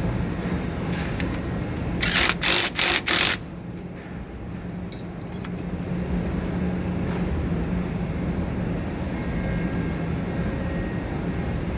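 Steady low machine drone, broken about two seconds in by four short, loud, hissing bursts in quick succession.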